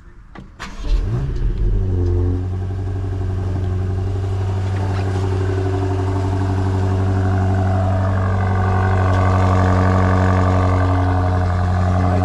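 BMW X5 M's twin-turbo V8 starting up. It catches about a second in with a brief rise in revs, then settles into a steady idle.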